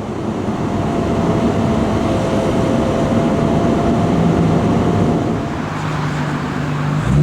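Lamborghini Gallardo's V10 engine running at steady, low revs under loud road and wind noise, its low note coming through more clearly in the last couple of seconds.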